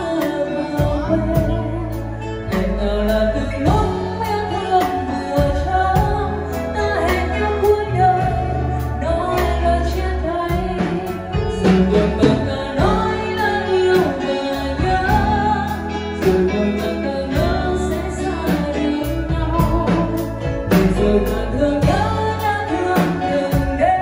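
Small live band playing a song, with singing over guitar, keyboard and a steady bass line.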